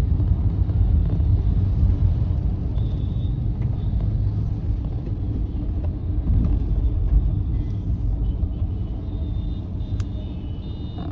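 Steady low rumble of car road and engine noise heard from inside the cabin while driving, easing slightly near the end, with a single sharp click about ten seconds in.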